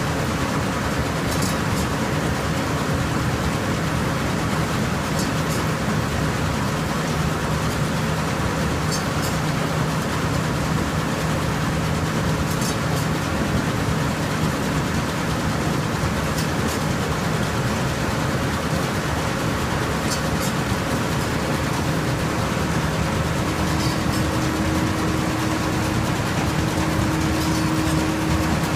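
John Deere 1075 combine harvester running steadily with a continuous mechanical drone, and a faint tick about every four seconds.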